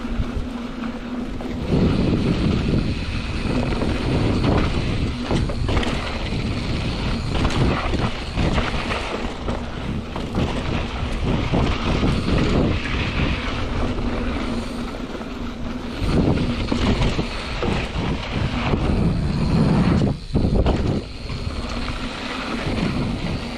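Mountain bike being ridden on a dirt trail: wind buffeting the microphone and tyres rumbling over the ground, with the bike knocking and rattling often.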